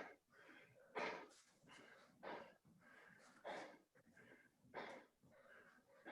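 Faint, heavy breathing of someone out of breath from doing burpees, a hard breath about every second and a quarter.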